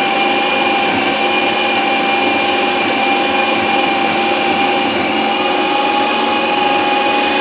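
Ninja Creami ice cream maker running on its Ice Cream program, its motor-driven blade shaving down a frozen block of ice-cream base in the pint: a steady motor whine with a constant pitch.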